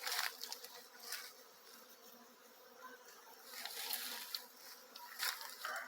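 Many scout honeybees buzzing in flight around a Kenyan top bar hive, a faint steady hum that gets louder for about a second past the middle as bees pass close. The scouting is the sign of a swarm looking the hive over as a new home.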